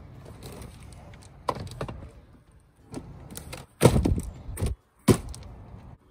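Thuds and knocks of grocery items being set down and packed into a car's cargo space: a few scattered bumps, with the loudest ones about four and five seconds in.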